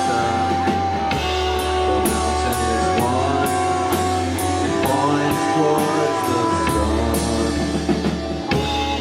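Live rock band playing amplified: guitar and bass notes over a drum kit with evenly spaced cymbal strikes. A sharp hit about 8.5 seconds in, after which the chords ring and fade.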